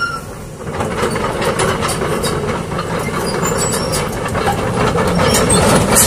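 Hyundai HX220 tracked excavator travelling on pavement: its engine runs steadily under a continuous clatter of steel track links, with occasional high squeaks from the tracks.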